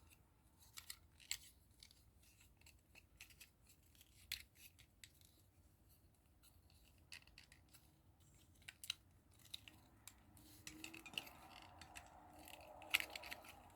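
Faint, scattered clicks and rustles of small plastic model parts and their packaging being handled, with a softer rubbing crinkle in the last few seconds.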